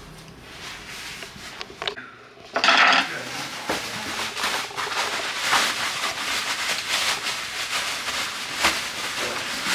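A short loud rustle about two and a half seconds in, then continuous crackling and crinkling of bubble wrap as it is pulled off a part by hand.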